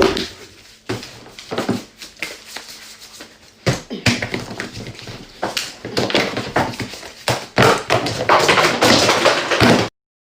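A rapid, irregular series of taps and knocks that grows busier about four seconds in and cuts off abruptly near the end.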